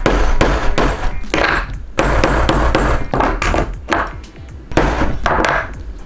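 A hammer striking a rivet setter again and again, setting brass rivets through the leather on a hard work board, with brief pauses between groups of blows. Background music runs underneath.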